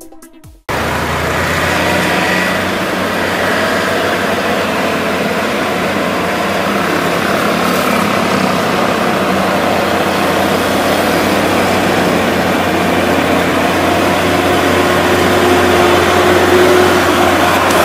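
Diesel truck engine working hard on a steep mountain hairpin, mixed with the engines of passing motorcycles and a car. It grows louder near the end as the truck comes closer.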